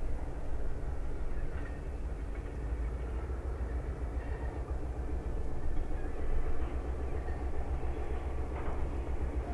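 Freight train slowly crossing a long trestle behind a single EMD GP9 diesel locomotive: a steady low rumble of the engine and the rolling cars, growing a little heavier a few seconds in.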